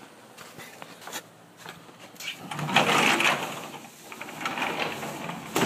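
A door being opened and pushed shut: two rolling, scraping runs, the first the loudest, then a sharp latch click near the end.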